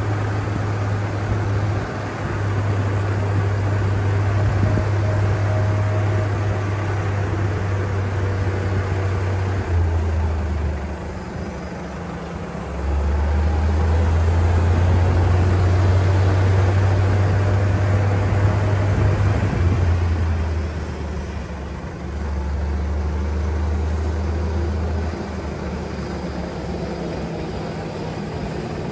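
Airport baggage tug driving across the ramp: a steady low rumble from the moving vehicle. It dips twice, about a third and two-thirds of the way through, and eases a little near the end.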